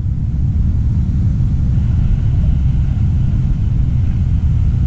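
Wind buffeting the microphone: a loud, steady low noise with no pitch.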